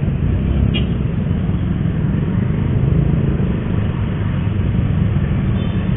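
Motorcycle engine running as the bike rides along, with a steady low rumble of wind and road noise.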